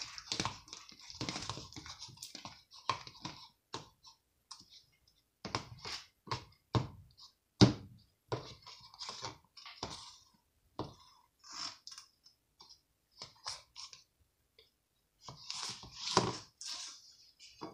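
Knife mashing and spreading butter: irregular clicks, taps and short scrapes with pauses between them.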